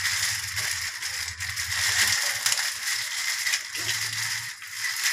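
A clear plastic packet crinkling and rustling as it is handled and opened, with the small metal bracket and screws inside clinking against each other.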